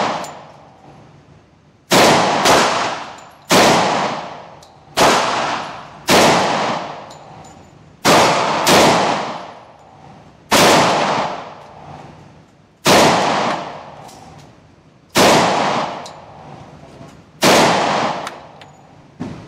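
Springfield Armory XD(M) 4.5 pistol in 10mm being fired: sharp shots about one to two seconds apart, some in quick pairs, each followed by a long echo off the walls of an indoor range.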